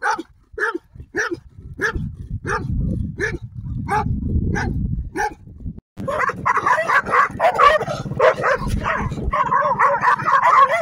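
Dog barking repeatedly at a steady pace, about one bark every half second or so, over a low rumble. About six seconds in, after a cut, a different dog takes over with rapid, overlapping barks.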